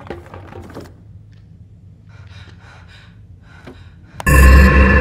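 Soft knocks and clicks of something being handled, then faint muffled noises; about four seconds in, a loud music hit with a deep rumble and steady droning tones cuts in suddenly.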